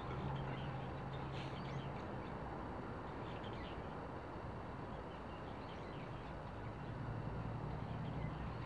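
Open-air ambience: a steady rushing background with a low hum, and a few short, faint bird chirps scattered through it.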